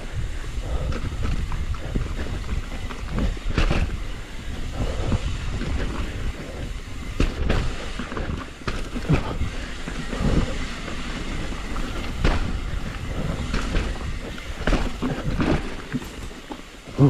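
Hardtail mountain bike clattering down rough singletrack: a steady rumble of tyres on dirt with frequent sharp knocks and rattles from the bike.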